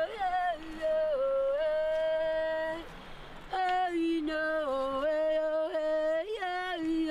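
A woman singing unaccompanied without words, in long held notes that slide down at the end of each phrase, with a short break for breath about three seconds in.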